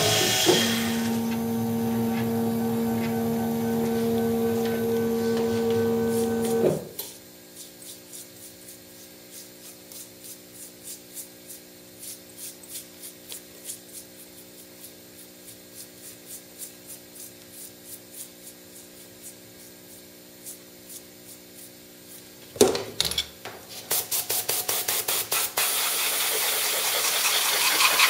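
A small CNC milling machine runs as a steady hum with two clear tones, and cuts off abruptly about seven seconds in. After that it is quiet apart from soft, regular brush strokes sweeping stainless chips off the part. Near the end there is a sharp knock, a quick run of clicks, and then a steady hiss.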